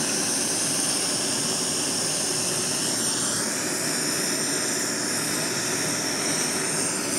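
Handheld propane torch flame hissing steadily while it heats a copper and galvanized-wire joint to red heat for silver brazing.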